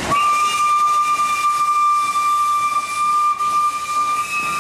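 Steam locomotive whistle blowing one long, steady blast that starts abruptly.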